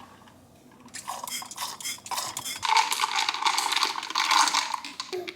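Metal spoon stirring coffee in a cup, clinking rapidly against the sides, starting about a second in and getting louder and busier over the last few seconds.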